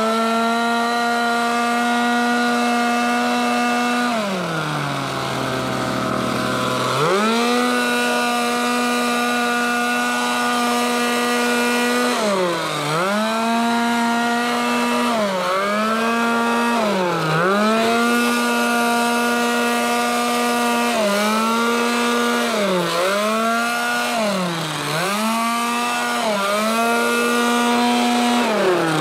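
Small petrol engine of a handheld power tool running at high revs, dropping to idle for about three seconds around four seconds in, then revving back up. In the second half the throttle is let off and squeezed again repeatedly, giving short dips in pitch every second or two.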